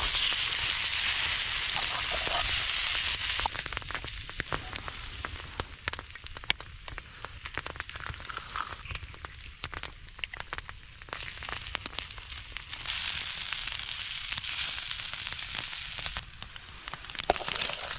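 Frozen corned beef hash frying in a hot skillet. A steady sizzle gives way after about three seconds to quieter crackling and popping, swells into a sizzle again near the two-thirds mark, then settles back to crackling.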